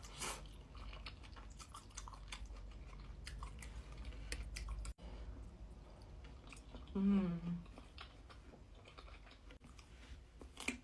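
Close-up mouth sounds of a person chewing food, with many small wet clicks and smacks. About seven seconds in there is a short hum of the voice.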